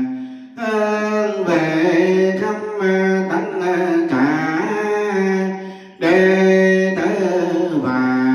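Vietnamese Buddhist chanting: a voice sings long, held melodic notes that slide from one pitch to the next, breaking off briefly about half a second in and again about six seconds in.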